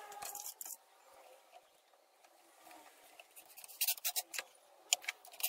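Scattered sharp clicks and light knocks from tools and parts being handled on a workbench: a few near the start, a quiet stretch, then a cluster about four seconds in and more near the end.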